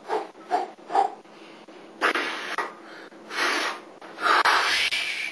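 A dancer's breath and mouth sounds: three short huffs about half a second apart, then three longer breathy hisses.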